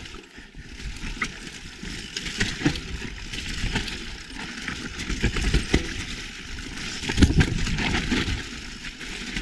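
Mountain bike rolling down a rough, rocky trail: tyre noise with many short knocks and clicks as the wheels, chain and frame rattle over rocks and roots.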